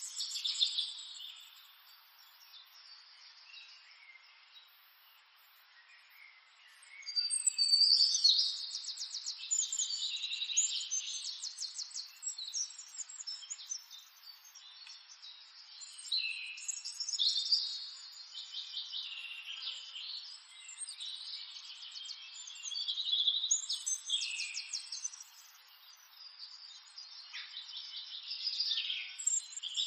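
Coloured pencil scratching on paper in quick back-and-forth shading strokes, coming in spells of a few seconds with quieter gaps between.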